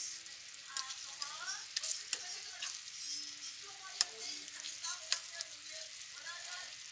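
A metal spoon stirring a thick chicken and potato stew in a nonstick frying pan, scraping through the sauce and knocking sharply against the pan several times over a steady hiss.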